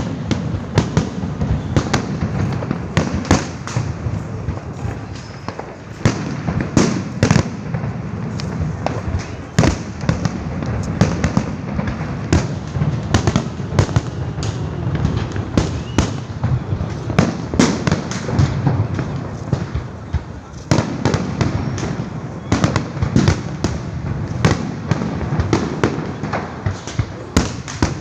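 Fireworks and firecrackers going off all around: many sharp bangs and cracks, several a second, over a continuous rumble of more distant explosions.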